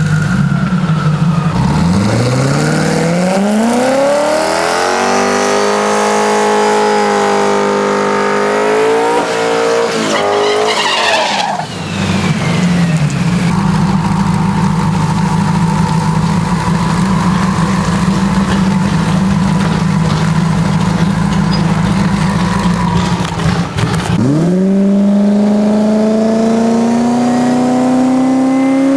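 Twin-turbo Ford F-150 drag truck's engine launching and accelerating hard down the strip, its pitch climbing through the gears before it lifts off about eleven seconds in. It then runs steadily, and near the end drops and pulls up again in a fresh rising rev.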